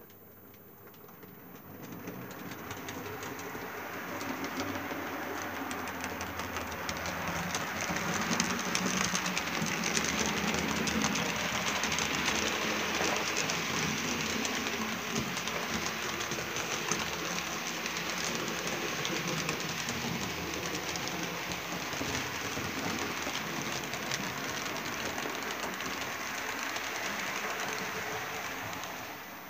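HO-scale model train, an SNCF CC 72000 diesel locomotive hauling coaches, running along the layout's track. A steady rolling rattle with fast fine clicks from the wheels on the rails builds up, is loudest about a third of the way in, and eases off near the end.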